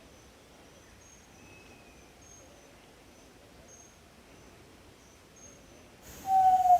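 Yellow-legged tinamou (jaó-do-sul) starting a loud, low, slightly falling whistle near the end, over faint high chirps in the background.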